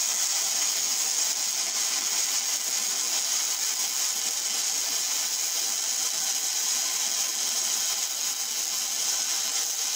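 Aluminum MIG welding arc from a spool gun under argon shielding gas: a steady, even hiss as a bead is laid.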